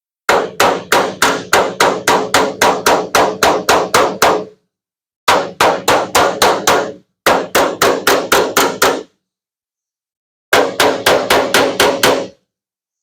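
Body hammer tapping rapidly on the sheet-steel bed panel of a Ford F-350 Super Duty, about four blows a second in four runs with short pauses between. Each blow rings briefly: the metal is being worked to knock down a crease and high spots in a dent.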